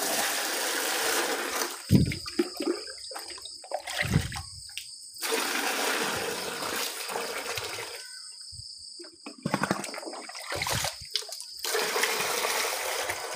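Water poured and splashing into plastic buckets from a drum, in rushing stretches of a couple of seconds with pauses and short knocks between.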